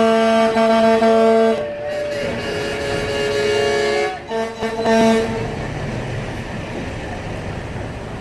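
Air horns blasting: one long steady blast that stops about a second and a half in, and a second blast about four seconds in lasting about a second, with a higher, briefly gliding horn tone under it. A steady low rumble of vehicles follows.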